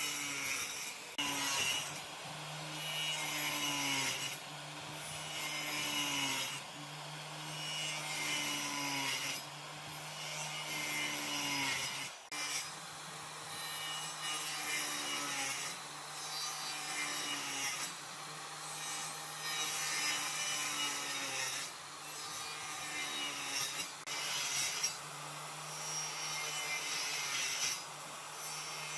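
Electric power tool working wood in repeated passes, about one every two seconds; the motor's pitch sags under load on each pass and recovers between them, over a rasping hiss from the cut.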